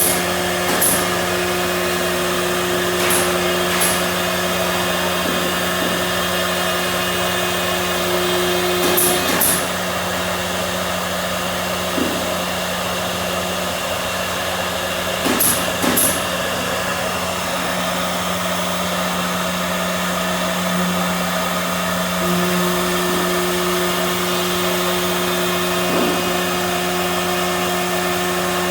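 CNC machine's motors running with a steady whine and hum, one of its tones dropping out for a stretch in the middle and coming back, with a few short clicks.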